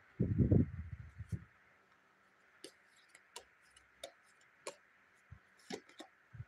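Tarot cards being handled and laid on a cloth-covered table: a burst of low rustling and bumping in the first second and a half, then scattered light clicks and taps as cards are drawn from the deck and set down.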